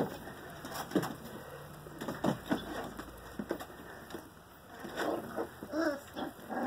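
Five-week-old Rottweiler puppies play-fighting, giving a string of short whimpers and squeaky cries that come thickest about five seconds in, with paws and bodies scuffling on blankets.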